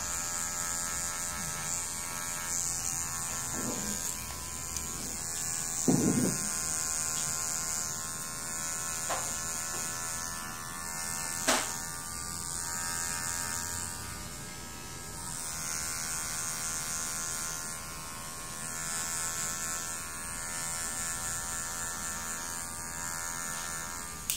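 Electric hair clipper running with a steady buzz, rising and falling in level every couple of seconds, with a few short sharp clicks.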